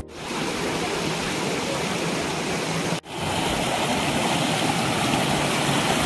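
Stream water pouring and splashing between boulders, a steady rush that drops out for an instant about halfway through.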